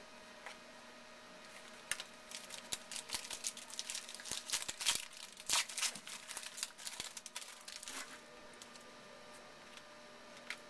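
Wrapper of a 2011 Panini Certified football card pack being torn open and crinkled by hand. A dense run of sharp crackles starts about two seconds in and lasts about six seconds.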